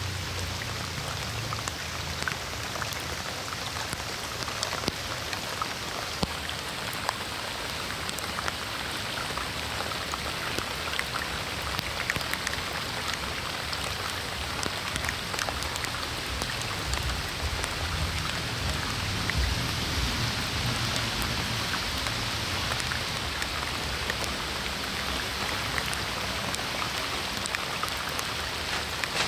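Steady rain falling, with many separate raindrop ticks landing close by on lotus leaves.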